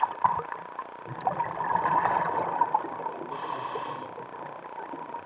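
Scuba diver breathing through a regulator underwater: a gurgling rush of exhaled bubbles from about one to three seconds in, then a short hiss of inhalation.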